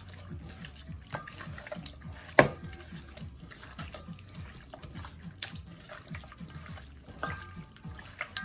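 Raw chicken pieces being worked by hand with salt and black pepper in a bowl: irregular wet squelches and smacks. A single sharper knock comes about two and a half seconds in.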